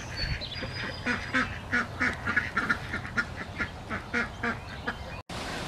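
Ducks quacking over and over, about three short calls a second, breaking off abruptly near the end.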